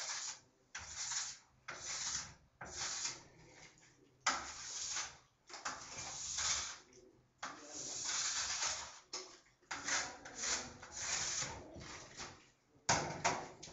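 Wax scraper pulled in repeated strokes along a ski base, about a dozen strokes with short pauses, each a rasping scrape. This is ironed-in wax being scraped off the base, the last step of waxing a ski.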